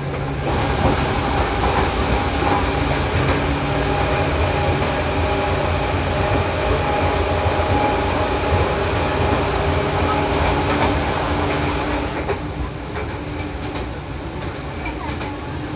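Seibu 4000 series electric train running at speed, heard from inside the car: a steady rumble of wheels on rail with a whine of several steady tones, which fades about twelve seconds in while the rumble goes on.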